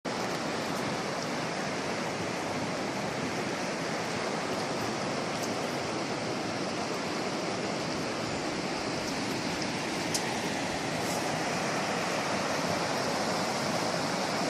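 Steady rushing of river water flowing over stones, with a few faint ticks.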